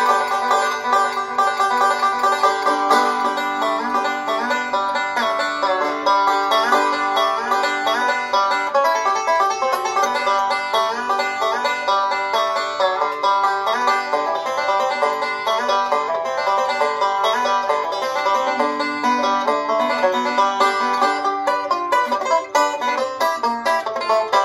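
Five-string resonator banjo played solo, a steady stream of rapid picked notes in a bluegrass style.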